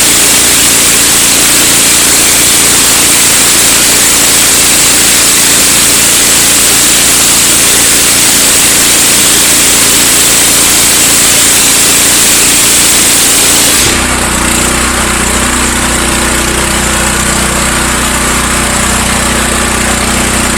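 Engine-driven pressure washer running with its wand spraying: a loud steady hiss of water over the engine's drone. About two-thirds of the way through, the spray hiss drops away and the engine is heard running on its own.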